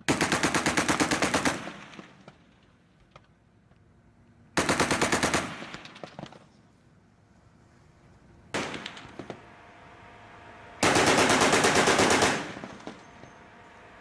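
Mk 38 25 mm naval machine gun firing three rapid bursts, each about a second and a half long, with a single shot between the second and third bursts.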